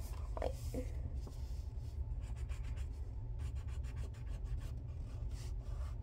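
Colored pencil scratching on paper in quick, repeated coloring strokes, over a steady low hum.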